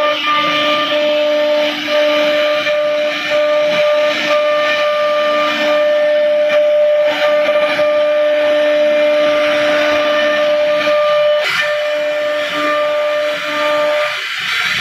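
CNC router spindle running with a steady whine while its bit carves a relief pattern into a wooden panel, with the hiss of the cutter chipping through the wood.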